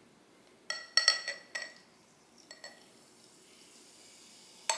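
A glass measuring cup clinking against a drinking glass, four quick ringing clinks about a second in, then Pepsi poured from the cup into the glass with a faint steady pouring hiss, and one sharp clink near the end.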